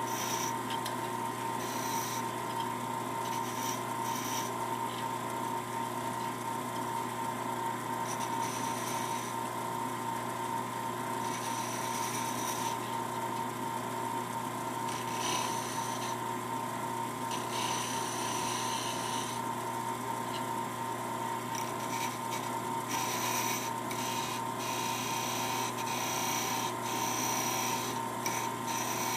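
Wood lathe running with a steady hum while a hand-held turning chisel scrapes the spinning rosewood in short, irregular passes, each cut a brief dry hiss.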